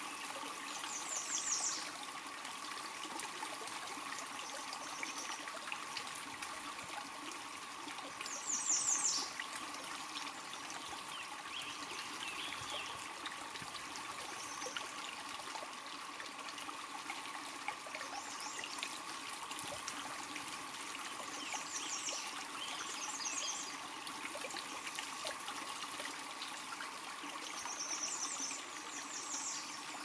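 Small woodland creek running shallow over rocks, a steady trickling babble of water. Short, high-pitched bird trills come through a few times: about a second in, again around nine seconds, and twice more in the last third.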